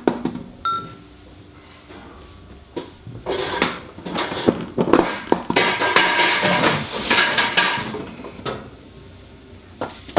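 Metal clanks and knocks in a steel shipboard compartment as a large naval gun round is carried and handled past hatch doors, with a short beep about a second in.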